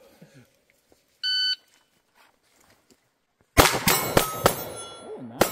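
Electronic shot-timer start beep about a second in, then, after about two seconds, a fast string of pistol shots, roughly six, with steel targets ringing as they are hit.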